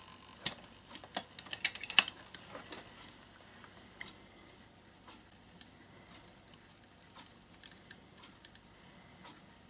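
A quick run of light clicks and taps in the first two seconds or so, with a few more after, from a soldering iron and wire being handled against a plastic battery box while a wire is soldered onto its terminal. After that only faint ticks.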